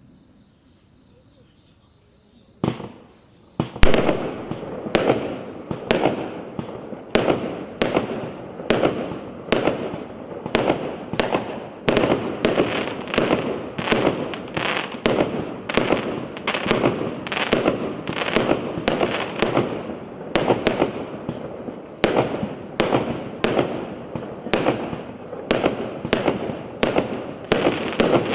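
A 100-shot fireworks cake battery with 0.8-inch tubes firing. After a quiet start, the first shots go off about two and a half seconds in. Then it keeps launching at about two shots a second, each with a sharp bang and a haze of bursting sound between them.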